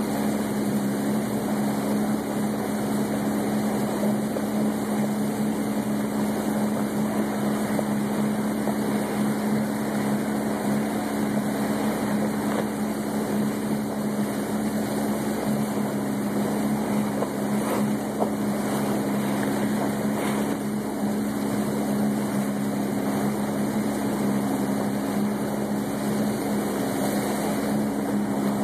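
Jet ski engine idling steadily, a low even hum that holds the same pitch throughout.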